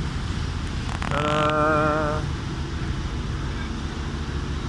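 Ferry's engine running with a steady low drone. About a second in, a steady pitched tone sounds for about a second.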